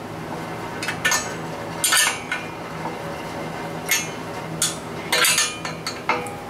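A 19 mm ratcheting wrench clicking and clinking on steel anchor-bolt nuts as they are tightened down. It gives a handful of short, sharp metallic clinks at irregular intervals.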